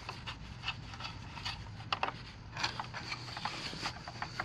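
Scattered light clicks and scrapes as a screwdriver turns screws into the plastic head unit of a Polaris 3900 Sport pool cleaner and the plastic parts are handled.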